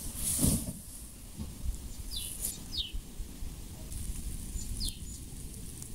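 A bird calling: a few short chirps that slide down in pitch, two close together about two seconds in and another near five seconds, over a steady high hiss. A short rush of noise, the loudest thing here, comes just after the start.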